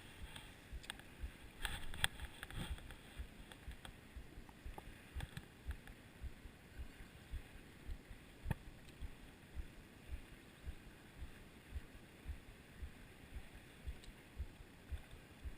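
Small water movements lapping against a boat: soft low thuds repeating irregularly, about two a second, with a couple of sharp clicks.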